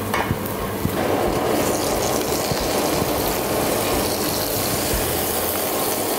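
Olive oil sizzling steadily in hot frying pans on a gas range, growing louder about a second in.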